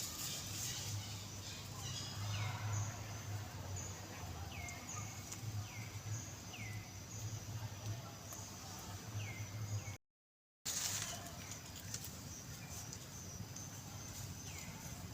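A bird repeating short, downward-sweeping chirps roughly once a second over a steady low hum and outdoor background noise. The sound cuts out completely for a moment about ten seconds in.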